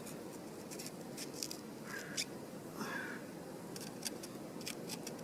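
Knife cutting and deseeding fresh bell peppers: scattered crisp clicks and two short squeaks about two and three seconds in, over a steady low background noise.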